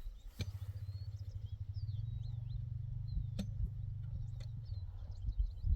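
Steady low engine rumble, with small birds chirping over it and a couple of sharp clicks.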